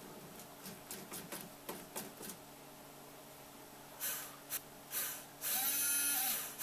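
A small geared DC motor on a scratch-built model railroad crane, the kind that works the boom and hook, runs in a few short bursts and then for a little over a second near the end. Before that comes a string of light clicks.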